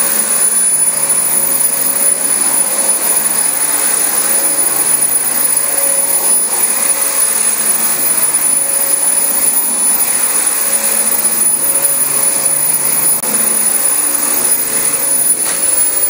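Dyson DC25 upright vacuum cleaner running steadily on thick new carpet, its motor giving a constant high whine.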